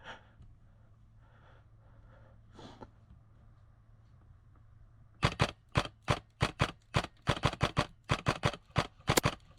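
Airsoft gun firing a quick, irregular string of about twenty single shots, beginning about five seconds in; each shot is a sharp, loud crack.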